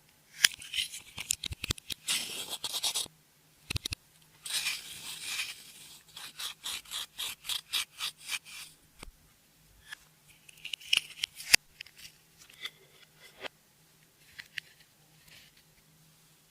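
Close scraping and scratching of hands working makeup into clear slime. A run of sharp clicks follows, about four or five a second, then scattered clicks and scrapes.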